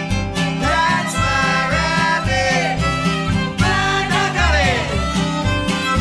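Old-time string band playing a fiddle tune: fiddle over acoustic guitar and upright bass, with the bass pulsing steadily underneath.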